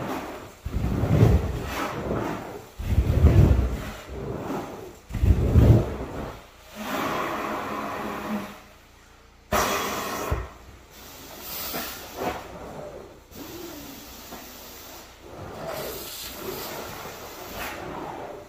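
Rug-cleaning equipment hissing as water is sprayed onto a wool area rug. It comes in three heavy surges about two seconds apart, then settles into lighter, uneven hissing with a sharp fresh burst about halfway through.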